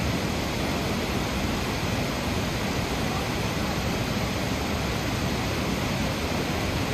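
Steady, even rushing noise, with no breaks or separate events.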